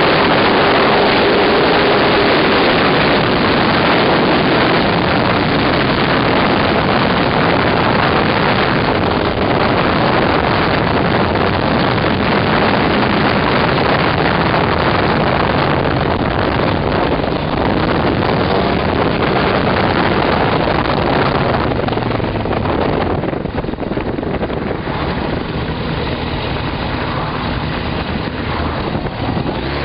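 Heavy wind rush over the microphone while riding a 2001 Suzuki GSX-R1000, with its inline-four engine heard under the wind. The wind noise eases in the last third as the bike slows, and the engine's pitch climbs again at the very end as it accelerates.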